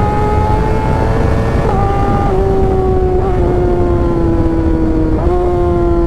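Kawasaki ZX-6R inline-four sport-bike engine running at a high, steady pitch while riding. The pitch drops about two seconds in, sags slowly, and steps back up about five seconds in.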